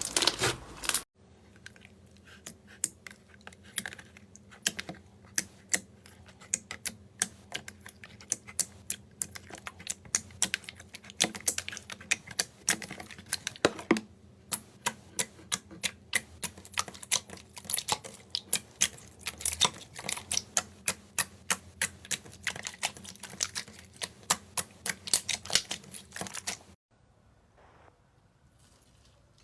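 Slime being pressed and poked by hand, giving a run of sharp small clicks and pops, a few a second, that stop near the end. A louder, denser crunching sound cuts off about a second in.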